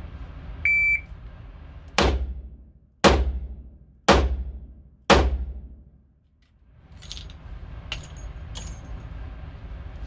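A shot timer's start beep, then four revolver shots about a second apart, each trailing off slowly. A few light clicks of handling follow near the end.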